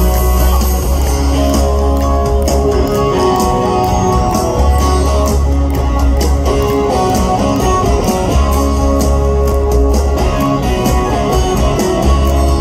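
Live rock band playing at full stadium volume, electric guitars to the fore over long, deep bass notes and drums.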